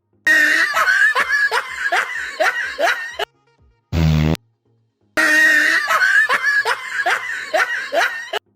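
A canned laugh-track clip, a burst of laughter pulsing about four times a second, played twice. Between the two plays, about four seconds in, comes a short, low buzzing fart sound effect that starts and stops abruptly.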